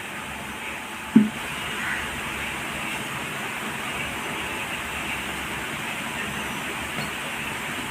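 Steady hissing background noise with a single short knock about a second in.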